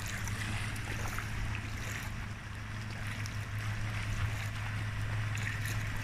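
Shallow seawater sloshing and splashing around wading legs and a paddling child, with a steady low hum underneath.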